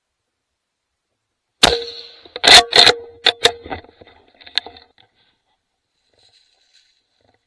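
A hunting rifle fired once at a buck about a second and a half in, a shot that hits the deer high. Several more loud, sharp reports and clatter follow over the next three seconds.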